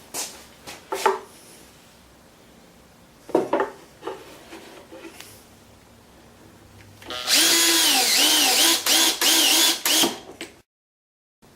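A few knocks and clicks of a clamp and wood being handled, then about seven seconds in a power drill runs for some three seconds in short trigger pulls, its pitch dipping under load as it drives screws into the wooden fence.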